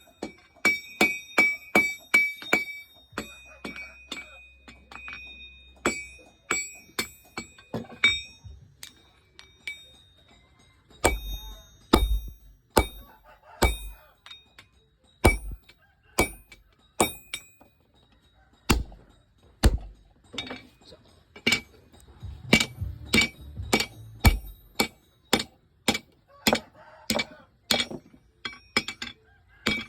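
Blacksmith's hand hammer forging steel rebar on an anvil: sharp metallic strikes in quick runs of about two to three a second, each leaving a bright ringing tone, broken by short pauses. Several heavier, duller blows are mixed in between about 11 and 20 seconds in.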